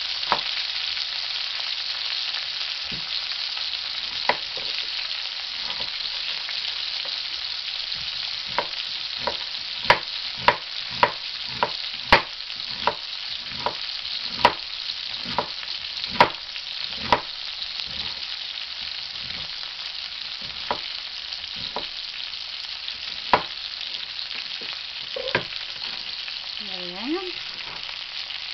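Chef's knife slicing through an onion and knocking on a cutting board, sharp knocks about two a second through the middle stretch and then fewer, over a steady sizzle of chicken sausage slices frying in a wok.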